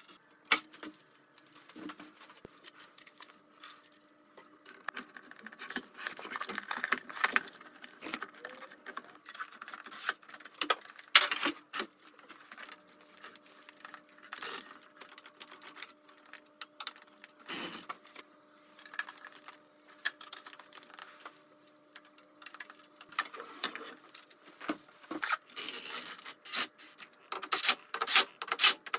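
Irregular clinks, taps and rattles of aluminium extrusion, bolts and small metal hardware being handled and fitted by hand during assembly of a CNC machine frame, some louder knocks among them. A faint steady hum runs underneath.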